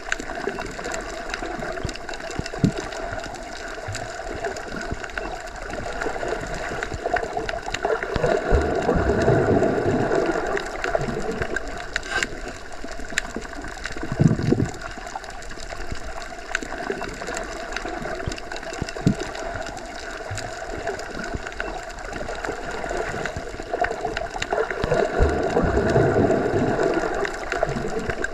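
Underwater ambience as heard submerged in a pool or lake: a continuous muffled rush of water with a steady hum. It swells twice and carries a few scattered clicks and knocks.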